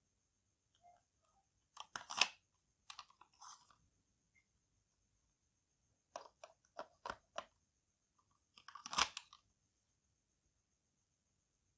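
Handling noise: small clicks and rustles in a few short clusters, with a quick run of five sharp clicks about six seconds in and another cluster near the end.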